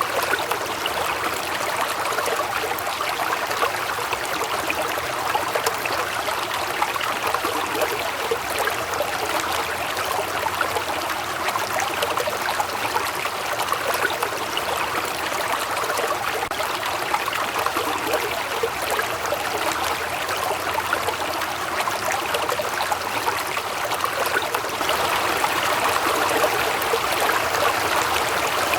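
Waterfall: water falling and splashing in a steady rushing hiss, rising slightly near the end.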